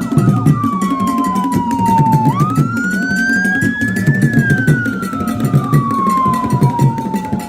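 A wailing siren tone over background music with a low, steady beat. The siren slides slowly down in pitch, climbs back up a little over two seconds in, and falls slowly again.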